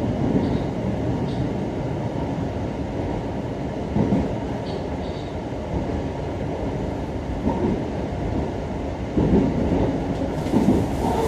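JR Hokkaido Rapid Airport electric train running, heard from inside the passenger car: a steady low rumble of wheels on rails, with a few louder thumps from the track.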